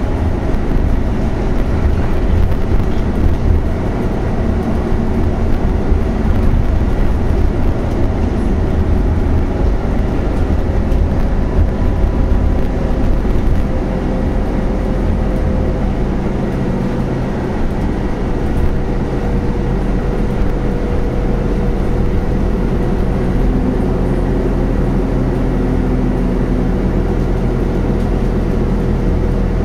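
Scania natural-gas (CNG) engine and driveline of an 18-metre articulated city bus under way, heard from inside the passenger cabin. A steady, loud low rumble whose engine tones shift up and down in pitch as the bus drives.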